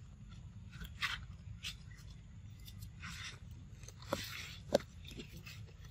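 Rustling and crunching in dry leaf litter as macaques shift and handle things on the ground, with a few sharp clicks, the loudest a bit past three quarters of the way through, over a steady low background rumble.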